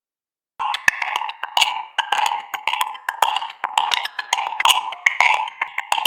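AI-generated sound from the Stable Audio Open model: a dense, irregular clatter of woody clicks and knocks, starting after a brief silence.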